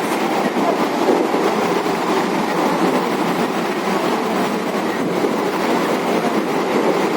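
Mumbai suburban local train running, a steady rumble and rattle of the carriage with wheels clattering over the rail joints.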